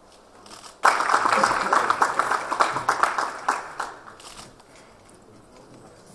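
Audience applauding, starting suddenly about a second in and dying away about three and a half seconds later.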